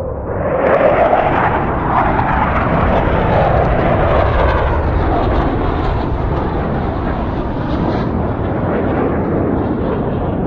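A loud, sustained roar from a sound-effects recording, with a wavering pitch that rises and falls. It swells about a second in and starts to fade near the end.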